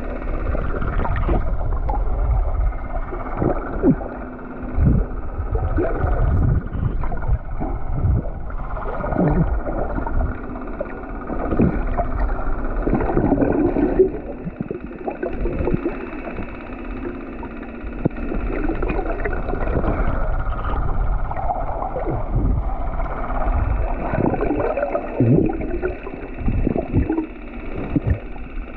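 Wind rumbling on the microphone and water sloshing around a small fishing boat at sea, with faint voices coming and going.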